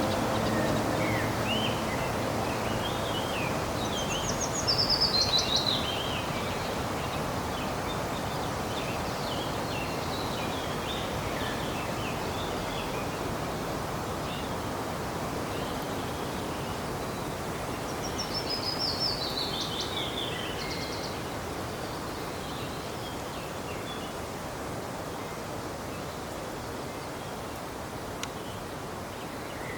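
Steady rushing of a waterfall with songbirds calling over it, gradually fading. Soft musical tones die away in the first couple of seconds, and a bird gives a fast descending trill twice, about 4 seconds in and again near 18 seconds, among scattered chirps.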